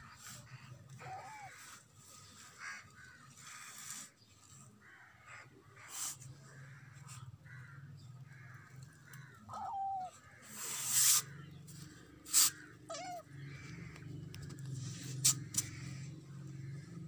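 Crows cawing again and again, with a kitten giving three short mews and a few sharp clicks close by; a steady low hum sets in about a third of the way through.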